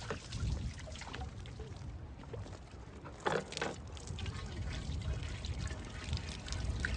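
Water being poured from a cut-down plastic container into a plastic jerrycan, a steady trickling pour. There is a brief louder noise just after three seconds in.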